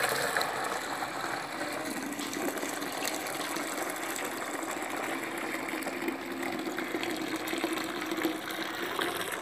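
Soaking water pouring in a steady stream from a steel pot of soaked split yellow lentils into a bowl below, the lentils being drained after soaking.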